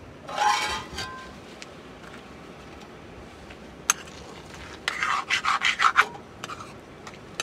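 Metal spoon scraping against the inside of a metal pan of curry in a quick run of about six strokes in the second half. A short metallic clatter with a faint ring comes near the start, and a single sharp click comes midway.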